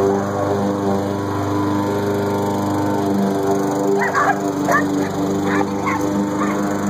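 Dogs barking, about five sharp barks from about four seconds in, over the steady drone of a small engine running nearby, like a lawn mower's.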